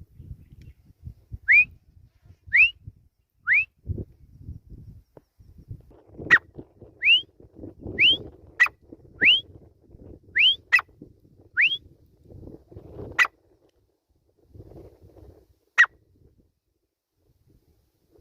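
Grey francolin calling: a run of short, sharply rising whistled notes, roughly one a second, mixed with several sharp click-like notes, over low rustling.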